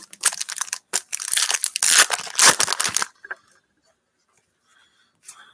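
A trading-card pack wrapper being torn open and crinkled: rough tearing and crinkling for about three seconds, then it stops.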